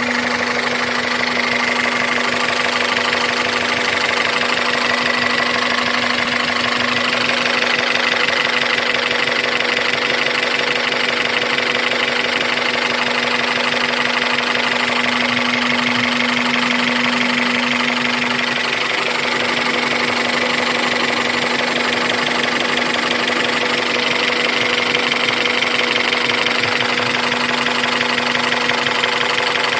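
Honda F20B inline-four engine idling steadily with a fast, even knock or ticking running through it: the knock that is the fault being recorded.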